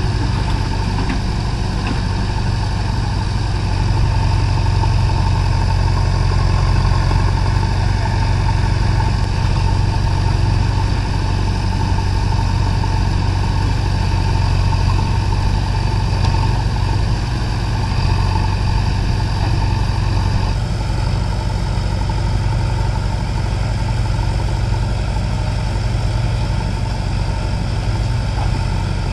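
JCB backhoe loader's diesel engine running steadily at low revs. The higher part of the engine sound drops away about two-thirds of the way through.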